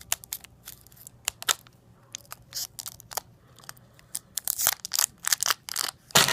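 Scattered sharp clicks and crackles close to the microphone, coming thicker near the end, as a hard watermelon-flavoured candy pop is eaten.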